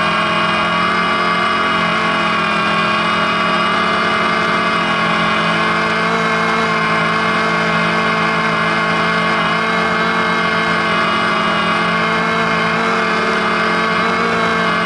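DJI Phantom quadcopter's motors and propellers whining steadily in flight, a close, steady hum of several tones heard from the camera mounted on the drone itself.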